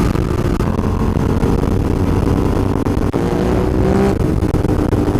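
Motorcycle engine running steadily at highway speed, with rushing wind over the onboard camera microphone.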